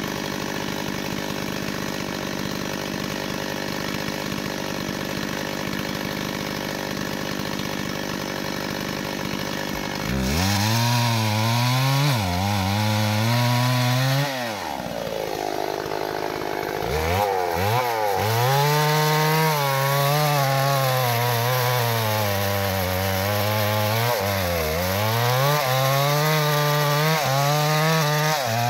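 Two-stroke chainsaw cutting into an acacia trunk. It runs at a steady high rev for the first ten or so seconds, then its note drops lower and wavers, dipping several times as the engine labours in the cut. It revs up briefly in the middle.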